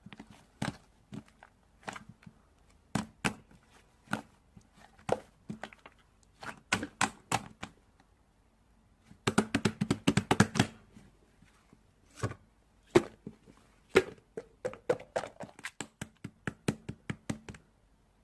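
A series of short, irregular taps and clicks, with a quick flurry of them about halfway through.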